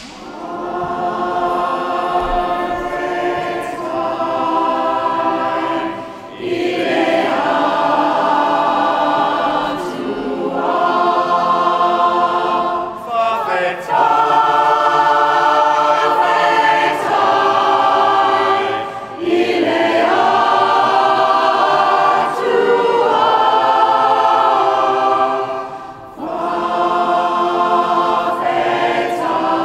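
Mixed-voice community choir singing a Samoan hymn of thanks and praise a cappella. The singing begins right at the start and moves in sung phrases with short breaks between them.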